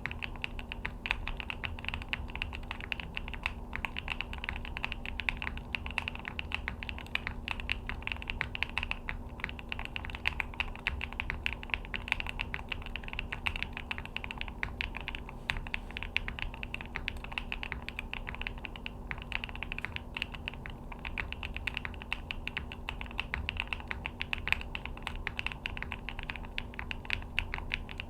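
Continuous typing on a Neo65 65% custom mechanical keyboard: a fast, uneven stream of keystroke clacks with no pauses.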